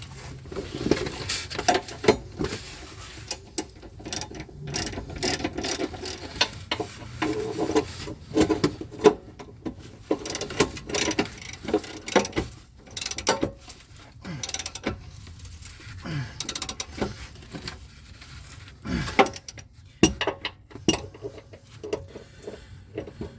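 Ratchet wrench clicking in irregular runs of short, sharp clicks as the bolts holding a trailer hitch to the vehicle's frame are tightened.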